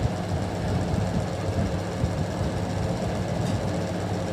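Steady low hum and rumble of background noise, level throughout with no distinct events.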